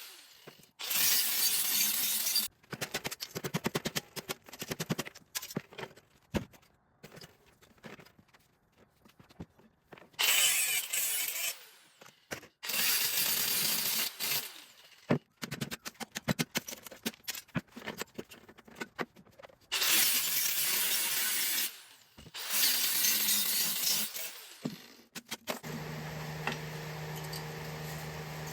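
Scrap metal clattering and rattling in several loud bursts of one to two seconds, with scattered sharp knocks and clinks between them, as parts of an air conditioner are handled for scrap. A steady hum comes in near the end.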